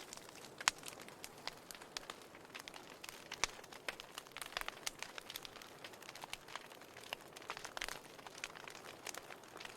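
Fireplace fire crackling: irregular sharp pops and snaps over a faint steady hiss, with louder pops a little under a second in and about three and a half seconds in.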